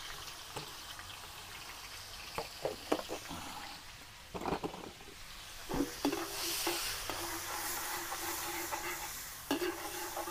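Margarine melting and sizzling in a large wok, stirred with a metal ladle that scrapes and clinks against the pan a few times. The sizzle grows louder past the middle as the fat heats.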